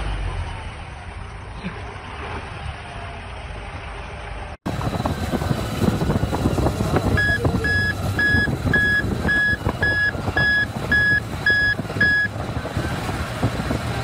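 A three-axle army truck's engine running as it drives over snow. After a cut about four and a half seconds in, a Shantui SD16L crawler bulldozer's engine and tracks are working through snow and slush. Its reversing alarm beeps ten times, about two a second, starting about seven seconds in.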